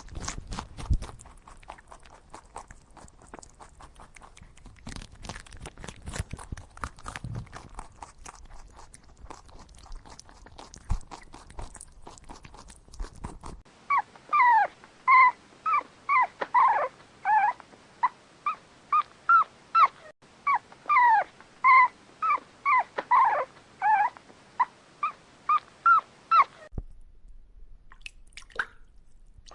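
A dog yelping over and over, about two short yelps a second, each falling in pitch. This goes on for about thirteen seconds after a stretch of crackling, crunching noise and stops abruptly.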